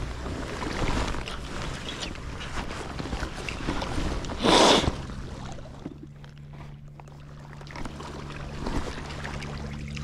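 Outdoor wind and water noise, with one loud brief noise about halfway through. After that a boat engine runs steadily in the background with a low, even hum.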